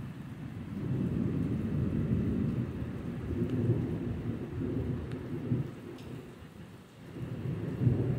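Rolling thunder rumbling low and unevenly, easing off about seven seconds in and swelling again near the end, with rain falling steadily.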